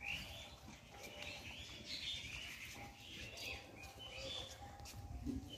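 Small birds chirping, with many short overlapping calls over a low background rumble.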